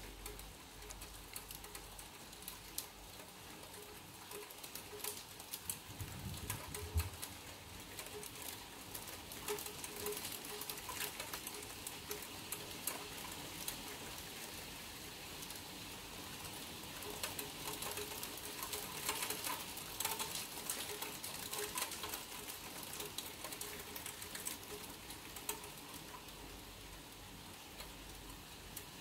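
Steady rain pattering, with many single drops ticking irregularly close by; the rain gets a little heavier in the second half. A brief low thump about seven seconds in.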